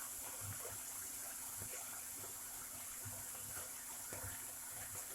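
Sliced pork belly frying in hot oil in a pan: a steady sizzle with scattered small pops and crackles, the meat crisping toward golden brown.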